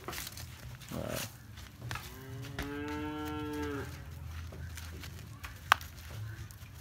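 A cow moos once, about two seconds in: one call of about a second and a half that rises slightly in pitch, holds, then drops. A single sharp click comes near the end.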